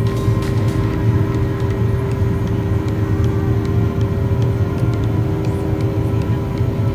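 Boeing 737 engine and airflow noise heard inside the cabin in flight: a steady low drone with a constant hum above it.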